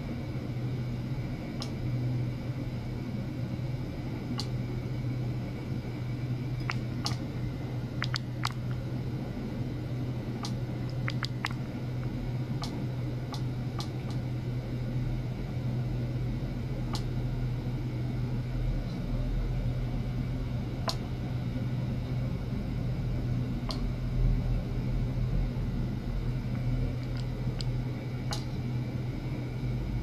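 Steady low electrical hum from running bench electronics, with scattered faint clicks and ticks over it.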